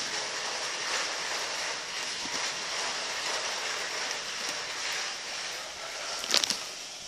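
Plastic wheels of a baby walker rolling and rattling across a tiled floor, a steady clattering noise, with a short cluster of sharp clicks a little after six seconds in.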